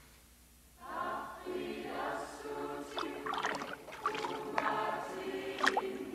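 A choir singing held notes, starting about a second in, with short splashy water sounds over it.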